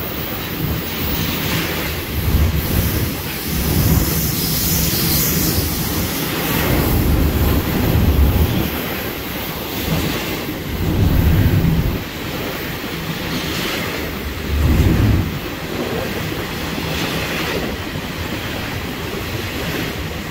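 Double-stack intermodal container cars rolling past in a concrete trench: a steady rumble of wheels on rail with some clickety-clack, swelling and easing every few seconds as the cars' wheel sets go by.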